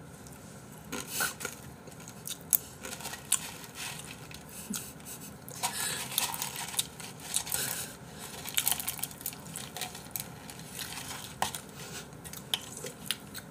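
Scattered small clicks, taps and crinkles of eating at a table: a bowl being handled and food picked out of it by hand, with an occasional dish clink.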